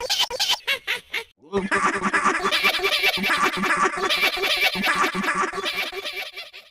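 A cartoon character's voice run through audio effects: a few short choppy bursts, a brief break, then a long run of quick, rhythmic giggling.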